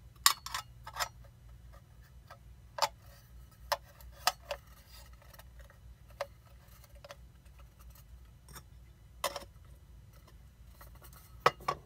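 Vintage aluminum egg poacher being handled and reassembled: a dozen or so light, irregular clinks and taps of its thin pan, poaching cup and lid knocking together. The loudest fall near the start and about nine seconds in.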